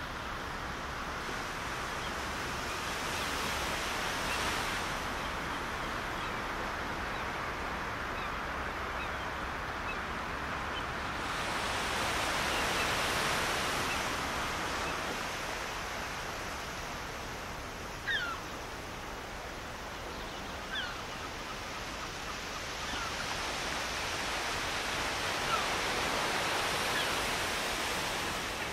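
Gentle surf washing in over a shallow sandy beach, a steady hiss that swells and ebbs in slow surges. A few short high chirps sound in the second half.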